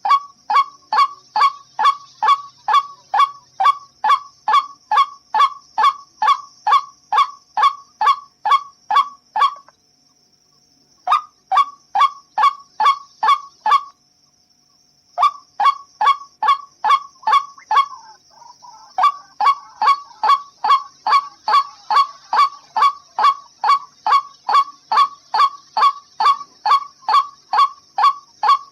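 White-breasted waterhen (ruak-ruak) calling a harsh, nasal note over and over, about two calls a second, with two short pauses of about a second partway through. A faint steady high hiss runs underneath.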